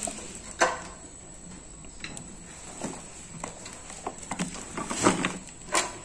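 About half a dozen scattered light knocks and taps from a tape-wrapped cardboard parcel being handled.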